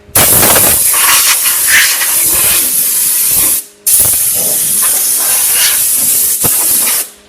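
Compressed-air blow gun hissing in two long blasts of about three seconds each, each cutting off sharply, clearing chips from a freshly drilled hole in a steel part on a lathe.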